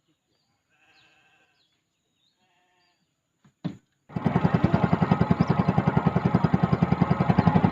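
Faint wavering animal calls, then a click about three and a half seconds in. Just after that a small engine starts up and runs with a fast, steady putter, much louder than the calls.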